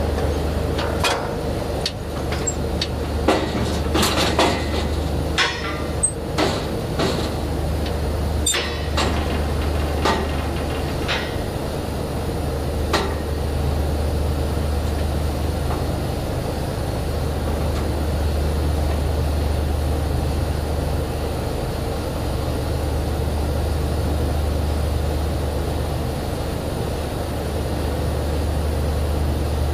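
Drilling rig machinery running with a steady low drone, and repeated sharp metal clanks of drill pipe and elevators knocking together during the first half as pipe is latched while tripping.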